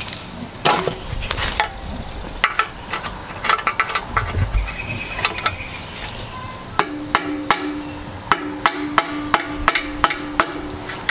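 Screwdriver being hammered like a punch to drive a small brass fitting out of a Turbo 400 transmission case. After a few seconds of scattered metal clicks, sharp metallic strikes start about seven seconds in and repeat two to three times a second, with a ringing tone carrying between the blows.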